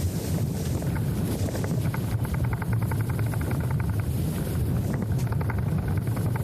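A steady low rumble like a running vehicle, with runs of fast, light ticking about two seconds in and again near the end.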